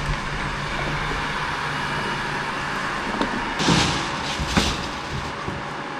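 Plastic bags rustling and bumping as they are loaded into a car's trunk, with a burst of rustling a little past halfway and a sharp knock soon after, over a steady background hum.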